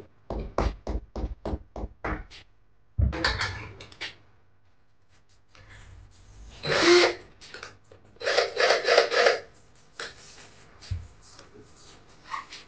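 A quick run of about eight sharp knocks, then a cordless drill boring into the wall in short bursts, the longest near the middle.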